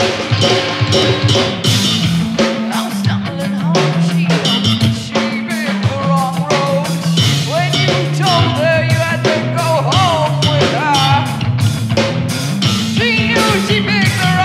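Rock band improvising: drum kit, electric bass line and electric guitar playing together, with a lead line sliding up and down in pitch through the middle. A rough, unpolished rehearsal mix.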